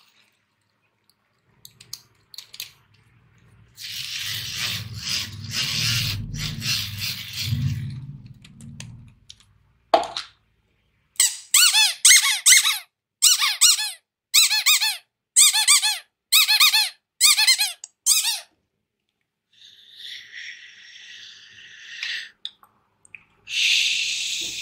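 Blue rubber squeaky toy shaped like a bar of soap, squeezed over and over: a run of short squeaks, about two a second, for some seven seconds. A few seconds of rattling noise come before it.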